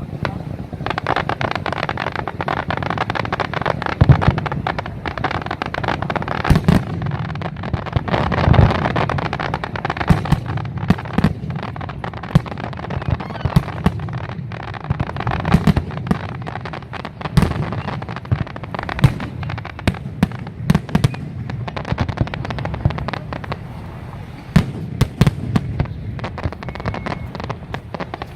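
Fireworks display: a rapid barrage of aerial shells bursting in sharp bangs and booms over a continuous crackle, densest in the first third and thinning to scattered bangs later.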